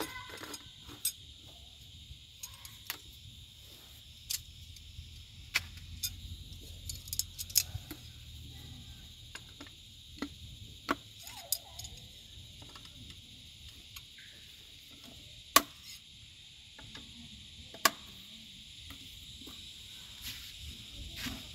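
Folding camp table being assembled: its jointed poles clicking and rattling together, with two sharp snaps in the second half as the parts lock into place. A steady high insect drone runs underneath.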